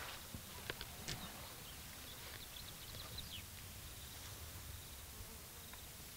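Quiet waterhole ambience: a steady low background, a few soft knocks in the first second or so, and faint high bird chirps in the middle.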